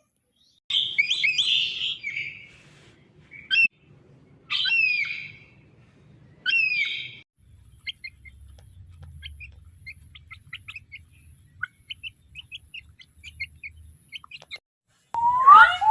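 Birds calling: several loud, sharp calls that drop in pitch, spaced a second or two apart, then a run of faint, quick chirps. Loud rising calls start just before the end.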